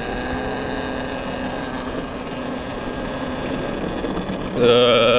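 Talaria XXX electric dirt bike's motor whining steadily under way, over road and wind noise. About 4.6 s in, a loud steady tone sounds for about a second.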